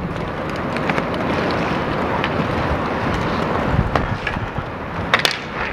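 Inline hockey play: skate wheels rolling on the rink surface over a steady rush of noise, with scattered sharp clacks of sticks and puck, the loudest a quick pair of knocks about five seconds in.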